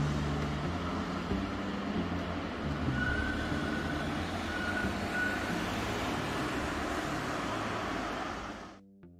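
Tram running away along street tracks amid traffic: a steady rumble and road noise with two faint, brief high squeals around the middle. The sound cuts off sharply near the end.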